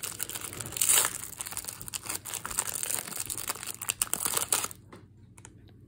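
Foil wrapper of a Pokémon card booster pack crinkling and rustling in the hands as the pack is torn open. The crinkling stops near the end.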